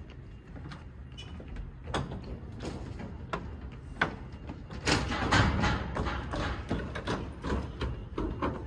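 A series of irregular knocks and clacks over a steady outdoor background, coming thicker and louder from about five seconds in.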